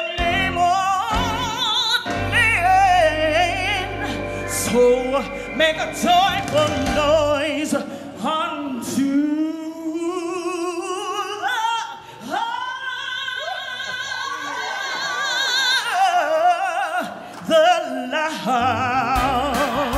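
A woman's solo gospel voice through a microphone, singing long held notes and sliding runs with wide vibrato. A low bass note sustains underneath for a few seconds near the start.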